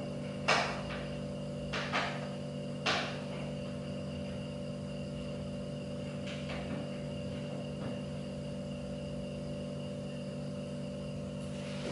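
A few sharp clicks and knocks in the first three seconds, then two faint ones later, from a hand tool and the plastic and metal parts of an office chair being handled while the backrest is screwed on. A steady low hum runs underneath.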